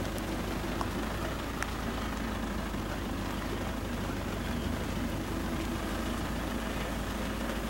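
Vehicle engine running steadily at low speed, a low even rumble, with a constant hiss of rain over it.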